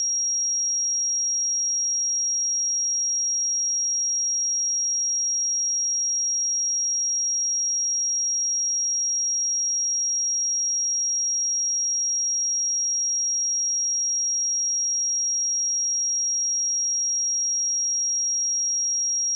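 A steady, high-pitched pure sine tone at 5633 Hz, one unwavering pitch with nothing else, used as a test signal for speakers and headphones.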